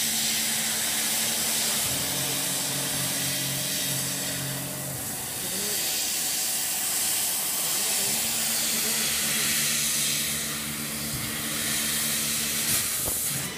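CO2 laser cutting machine cutting sheet metal: a steady hiss from the cutting head, with a low machine hum that starts and stops several times as the head moves between cuts. A brief click near the end.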